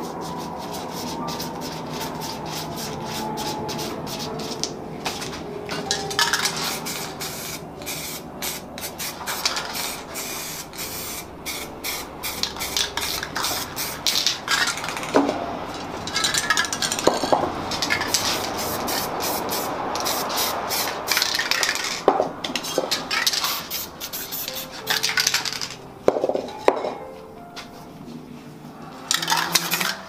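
Aerosol spray-paint cans hissing in many short, irregular bursts.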